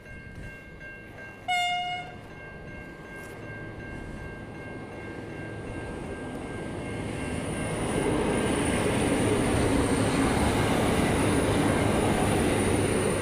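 V/Line VLocity diesel railcar sounding one short horn blast about a second and a half in, then approaching and passing close by. The running noise grows steadily louder and stays loud for the last few seconds, with a thin high whine from about halfway.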